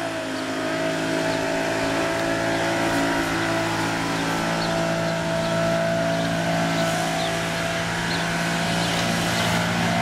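A vehicle engine idling steadily, a constant low hum with no change in pitch.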